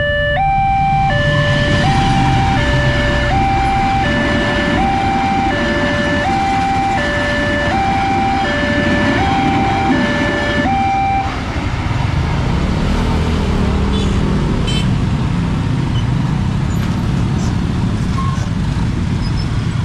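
Railway level-crossing alarm sounding a repeating high-low electronic two-tone over the low rumble of a passing train; the alarm stops about eleven seconds in. Afterwards the engines of waiting motorcycles and cars run as they move off across the tracks.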